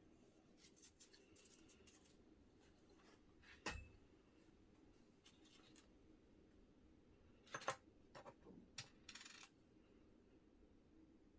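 Faint handling sounds of small parts: scattered light clicks, a sharper knock a few seconds in, two more knocks past the middle, and a short scraping rustle near the end.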